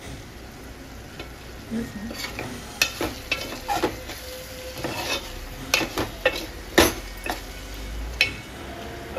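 A metal ladle stirring thick prawn curry in a metal pot, knocking and scraping against the pot in a run of irregular clicks from about two seconds in, over a faint steady sizzle of the cooking curry.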